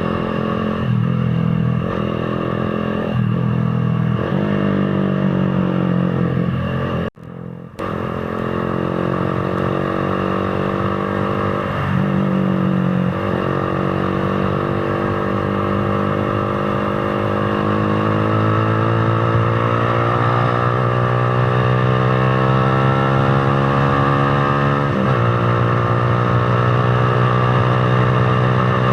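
Motorcycle engine running on the road under way, its pitch stepping up and down with gear changes early on, then climbing slowly as it accelerates, dropping once with a shift near the end and climbing again. The sound cuts out briefly about seven seconds in.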